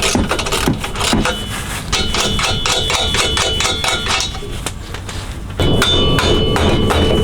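Metal clanking and ringing from the steel exhaust mid-pipe being worked off its hangers. There is a quick run of regular strikes, about four or five a second, from about two seconds in, and the sound grows louder near the end.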